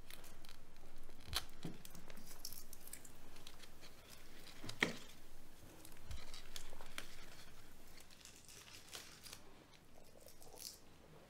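Dried leaves being picked and torn off a small potted plant: a run of light crackling and rustling snaps, with one sharper click about five seconds in.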